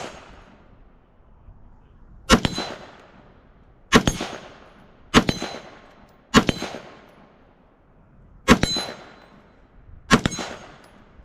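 AR-15 firing 5.56 rounds, six single shots spaced unevenly a second or two apart. After several of them a steel target rings with a short clang.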